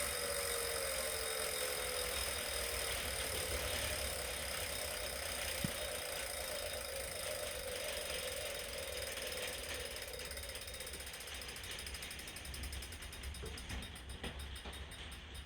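Wahoo Kickr Core smart trainer coasting down: a whine falls in pitch as the flywheel slows, while the freehub ratchet clicks, the clicks slowing near the end. A single sharp knock comes about six seconds in. This is the whining and knocking noise the trainer is being checked for.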